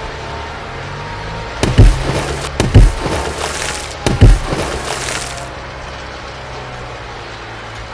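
Three loud heavy thumps about a second apart, with a cracking, splintering crackle between and after them that stops about five and a half seconds in, over a steady low hum.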